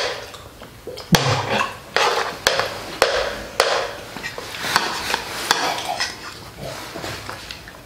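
Metal spoons clinking and scraping against plates during a meal, with a dozen or so sharp knocks spread irregularly through it.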